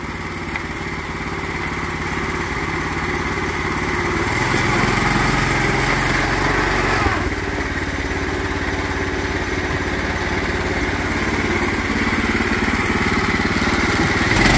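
Small single-cylinder gas engine of a governor-deleted lawn-tractor go-kart running under load, revving up about four seconds in, easing off sharply around seven seconds, then building again.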